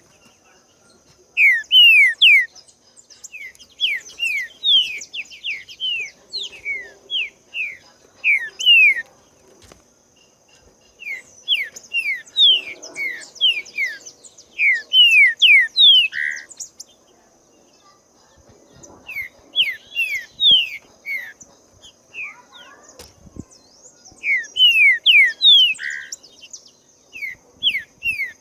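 Green-winged saltator (trinca-ferro) singing: loud phrases of quick, down-slurred whistled notes, repeated in bursts with short pauses between them.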